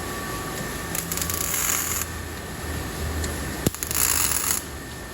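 Spool-gun MIG welder arc crackling in two short bursts of about a second each, with a sharp click just before the second. It is laying short welds to fill holes in a truck cab's sheet metal.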